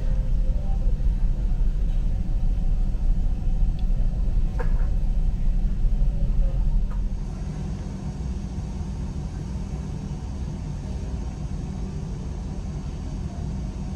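Steady low rumble of a ferry underway, heard inside its dining room, with a couple of light clicks of chopsticks on the plate. About halfway through, the rumble drops to a quieter, even hum.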